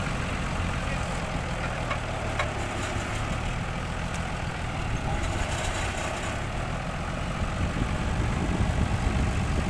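Engine of a tracked winch rig running steadily at idle, with two light clicks about two seconds in and a slight rise in level near the end.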